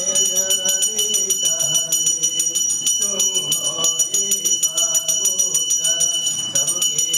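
Temple bell rung rapidly and without pause for the aarti, a steady high ringing, with a devotional song sung underneath.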